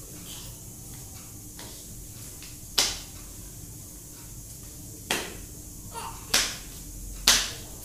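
Four sharp slaps of foam puzzle tiles against a hard stone floor: one about three seconds in, then three more about a second apart near the end.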